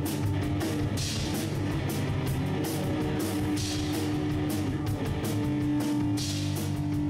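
Instrumental rock played by a guitar, bass and drums trio. A long held guitar note comes back every couple of seconds over a steady drum-kit beat with cymbals.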